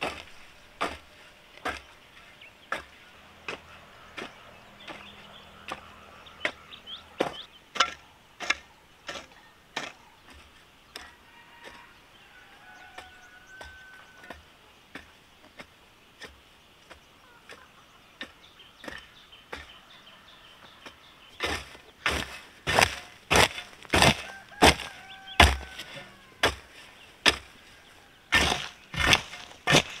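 A blade chopping into wood in sharp repeated strikes, about one a second at first. The strikes thin out and grow faint in the middle, then come faster and harder, about two a second, over the last eight seconds.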